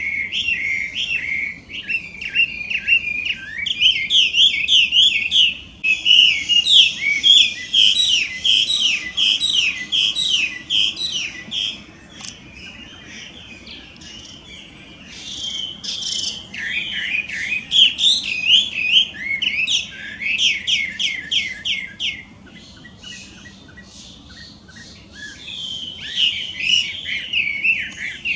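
Chinese hwamei (Garrulax canorus) singing very loudly: fast runs of repeated, sweeping whistled notes. The song drops away twice for a few seconds between bouts.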